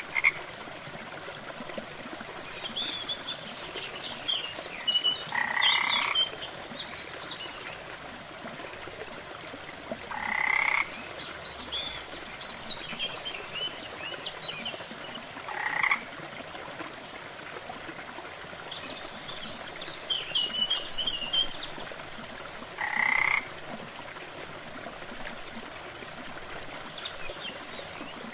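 Frogs croaking: five loud croaks spaced about five seconds apart, with clusters of fainter, higher chirping between them over a steady soft hiss.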